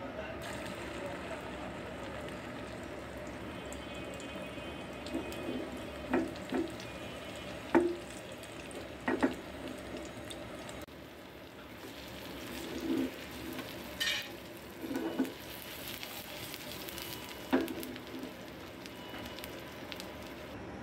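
Beaten egg frying in hot oil in a frying pan: a steady sizzle, broken several times by short sharp clicks and knocks.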